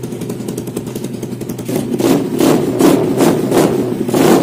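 Yamaha Vega four-stroke single-cylinder engine in a Honda Win, running on a newly fitted PE26 carburettor: it idles steadily, then a little before halfway the throttle is blipped in quick short revs, about two or three a second. The owner finds it runs well without any carburettor adjustment.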